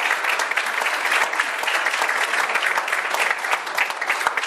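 An audience applauding: dense, steady clapping from many hands.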